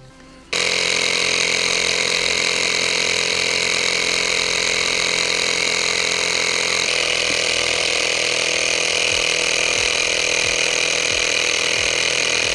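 Cordless handheld electric tire inflator switching on about half a second in and running steadily, a loud compressor drone, pumping up an electric unicycle's knobby tire; its pitch drops slightly about seven seconds in.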